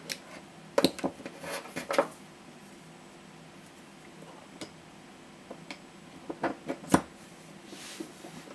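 Light plastic clicks and knocks as an Olympus LI-50B Li-ion camera battery and a small 3D-printed charger cradle are handled and the battery is fitted into the cradle. A cluster of clicks comes about a second in, a few single ticks follow, and another cluster near the end holds the sharpest click.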